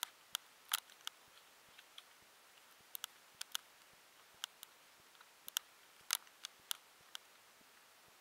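Playing cards being handled on a tabletop: a scatter of sharp, irregular clicks and light taps as the cards snap and knock against each other and the table.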